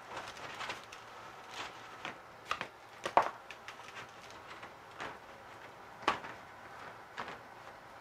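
Roll of half-inch galvanized hardware cloth being unrolled by hand: irregular light metallic clicks and rattles of the wire mesh, the loudest about three seconds in.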